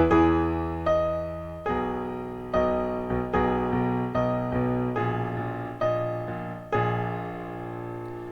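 Piano playing an instrumental passage of chords, struck a little more than once a second, each ringing and fading before the next.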